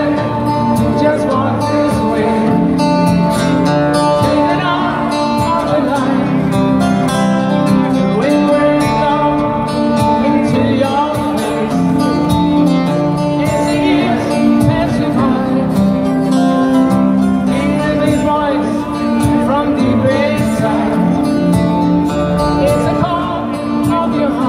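Live rock band playing a slow power ballad, a male lead singer over sustained chords and electric guitar, recorded on a phone from within the arena crowd.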